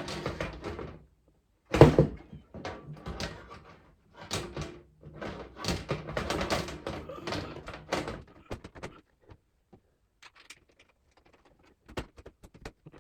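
Knocks and clatter of a PC case's parts being handled and fitted, with one loud thunk about two seconds in, a busy run of handling knocks, then a few light clicks near the end.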